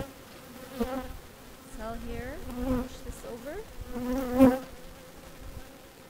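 Honeybees flying around an opened hive, buzzing close past the microphone in several passes. Each pass is a humming drone whose pitch bends as the bee goes by. The loudest pass comes about four and a half seconds in, and it is quieter after that.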